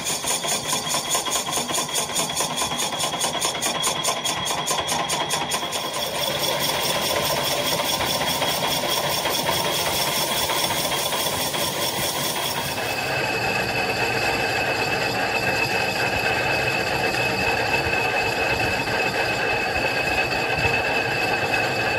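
Metal lathe running while its cutting tool faces the steel surface of a tractor clutch plate: a steady machine drone with high ringing tones from the cut, and a fast, even ticking rattle over the first several seconds. The tone of the cut changes about 13 seconds in.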